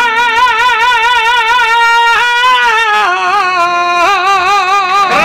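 A jota singer holds the long closing notes of a sung jota, the voice wavering in a wide vibrato and moving to a new pitch a few times before it stops.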